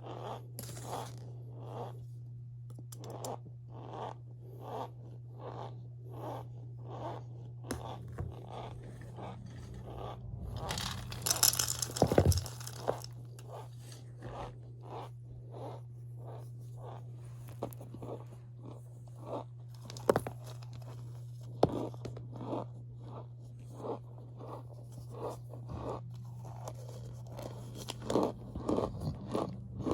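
Powdery cornstarch being squeezed and pressed by hand, a steady run of short squeaky crunches about two a second, with a louder, denser crunching scrape about a third of the way in. A steady low hum lies underneath.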